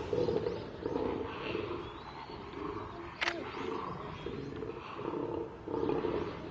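Lions growling in a run of low, repeated pulses while males posture at one another over the females. A single sharp click about three seconds in.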